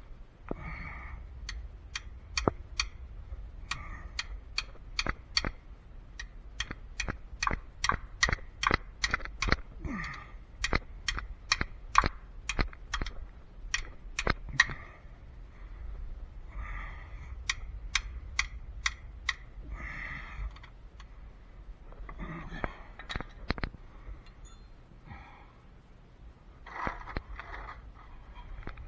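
Sharp metal clicks in quick runs of several a second from a 13 mm wrench working the oil drain plug loose on the Ford Escape's oil pan, with short pauses between runs.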